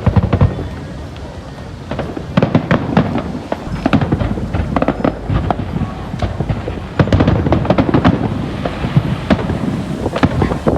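Fireworks display: a rapid series of aerial shell bangs, many overlapping. There is a loud cluster right at the start, a short lull, then dense, near-continuous bangs from about two seconds in.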